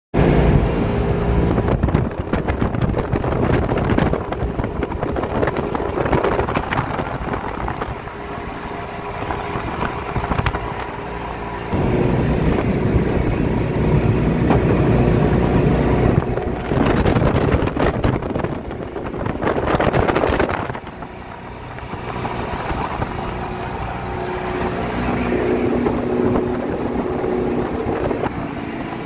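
Small open motorboat's engine running under way, with water rushing along the hull and wind on the microphone; it grows louder about twelve seconds in.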